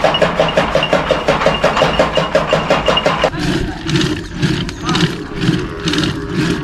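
Motor-driven chaff cutter running, its flywheel blades chopping hand-fed green fodder in a fast, even rhythm of about seven cuts a second over a faint steady whine. It cuts off after about three seconds, giving way to the slower rhythmic swishing of a wooden churning stick twirled back and forth with a rope in a clay pot, about two strokes a second.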